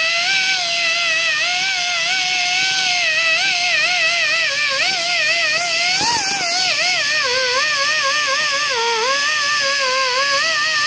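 Right-angle die grinder with a scrubber pad, spinning with a high whine against a Honda ATC 200X cylinder head to clean its surface. The pitch wavers as pressure on the pad changes, jumps up briefly about six seconds in, then sags lower for a few seconds under heavier pressure.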